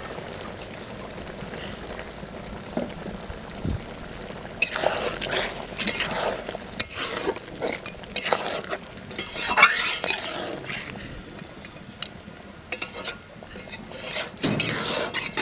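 Chicken curry being stirred in a metal pan: scraping strokes of the spoon against the pan over a steady simmering sizzle. The stirring comes in irregular spells, starting about four seconds in, and again near the end.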